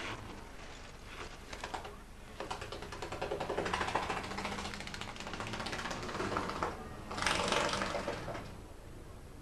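Banger race-car engines running slowly past under a caution period, a rapid rattling clatter that swells and fades in several surges, loudest near the end.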